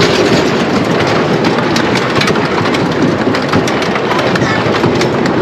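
1932 Hugo Haase/Erich Heidrich scenic railway coaster train running along its wooden track, a loud steady rumble full of rapid clattering, with wind rushing over the front-row microphone.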